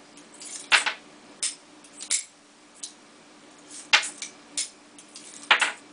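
Heritage Arms .22 single-action revolver being unloaded: about seven sharp metallic clicks, unevenly spaced, as the ejector rod punches rounds out and the cylinder is turned to the next chamber, with cartridges dropping onto the table.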